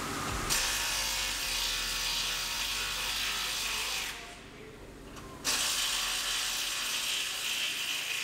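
Handheld power tool whirring in two runs of about three and a half and three seconds, with a short pause a little after four seconds in.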